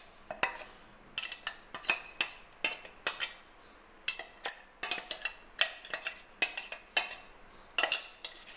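Light metal clinks and scrapes, about three a second, of a spoon knocking against a mixer-grinder jar to scrape thick green chilli paste out of it.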